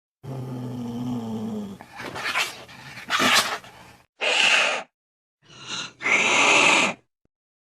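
Cats fighting: a low, steady growl, then a run of short, separate hisses and yowls with dead silence between some of them.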